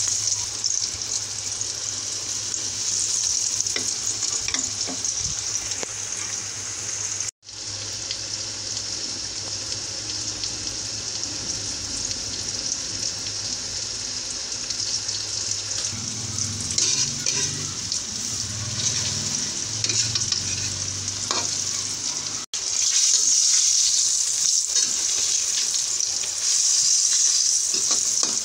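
Flour-coated eggs deep-frying in hot oil in a wok: a steady sizzle. It cuts out for an instant twice and is louder in the last few seconds.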